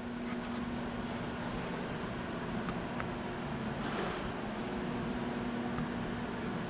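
Steady low hum over even background noise, with a few faint ticks.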